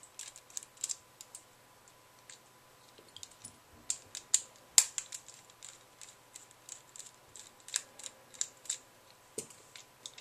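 Small screwdriver undoing the screws that hold the motor in a Trackmaster toy engine's plastic chassis: irregular light clicks and ticks as the driver works the screws and the plastic parts are handled.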